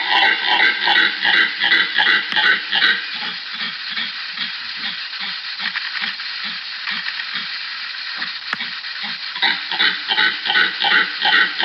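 A rhythmic run of loud, barking animal calls, about three a second. They soften to a hissing stretch with faint low pulses for several seconds, then the loud calls return near the end.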